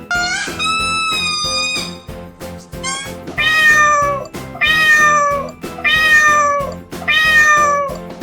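An animal's pitched calls over background music: one longer call at the start, then a run of five short calls about one a second, each falling slightly in pitch.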